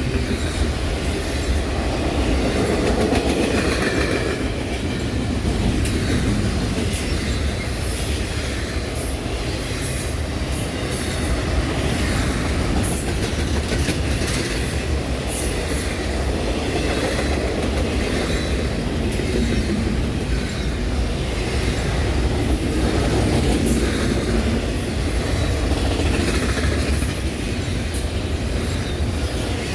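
Train cars rolling steadily past, with a continuous low rumble and frequent wheel clicks and clacks over the rail joints.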